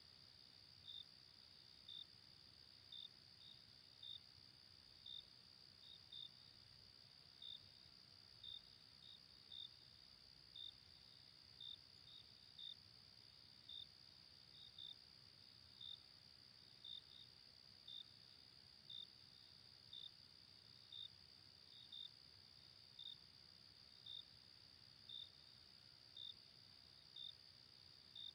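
Insects calling, faint: a steady high-pitched drone with a short chirp about once a second.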